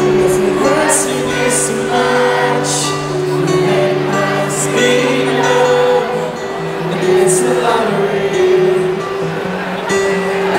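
Live band music: the instrumental intro of a rock ballad, with guitar and long held notes, before the vocals come in.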